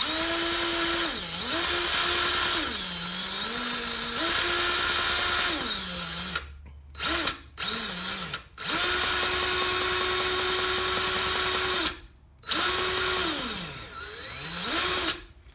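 DEWALT 20V Max cordless grease gun's motor running in spurts to prime its hose with grease on its first run. The whine drops in pitch and climbs back several times, with a few short stops around the middle.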